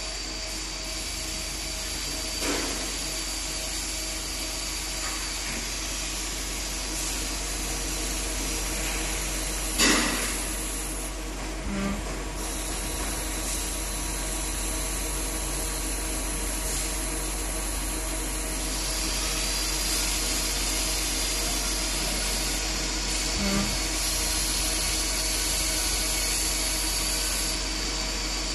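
CNC lathe running: a steady machine hum with a high whine, broken by a couple of brief sweeping strokes and a few short blips.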